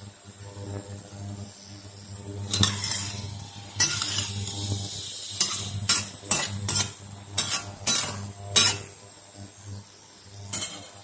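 Metal spatula stirring and scraping stir-fried celtuce and egg in a stainless steel wok, with a run of sharp clinks against the pan from a few seconds in until near the end and a brief sizzle. A steady low hum runs underneath.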